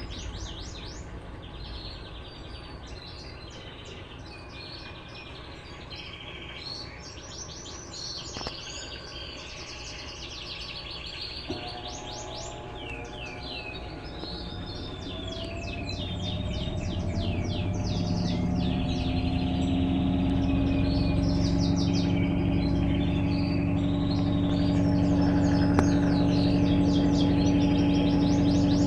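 Electrolux LTE12 top-loading washing machine ramping up into its spin: a rising whine starts about twelve seconds in, grows louder, and settles into a steady hum after about twenty seconds. Birds chirp throughout.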